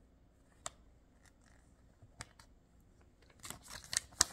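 A few light clicks, then about a second of crinkly rustling near the end as a folded paper instruction sheet is handled and unfolded.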